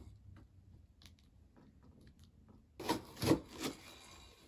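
Cardboard shipping box being opened: faint scraping and ticking of a tool working at the packing tape, then about three seconds in a few loud cardboard scrapes and rustles as the flaps are pulled open and the inner box is handled.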